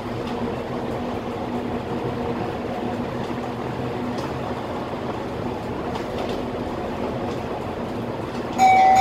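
Scania K320 articulated bus on the move, heard from the driver's cab: steady engine and road noise with a faint constant hum. Near the end a loud steady tone sounds for about a second.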